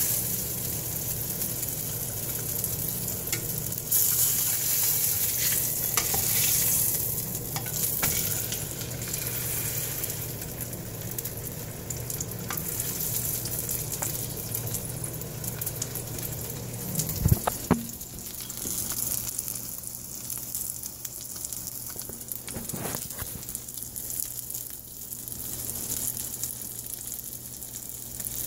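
Bacon-wrapped grilled cheese sizzling in hot bacon grease in a frying pan, the sizzle louder in the first half. A silicone spatula works in the pan with small scrapes and clicks, and one loud knock about two-thirds of the way through.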